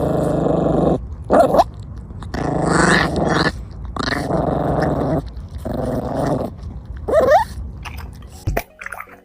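A dog growling in long, deep rumbling stretches, about four of them, each around a second long. Twice, a short rising whine cuts in: once about a second and a half in, and again near the end. It quietens just before the end.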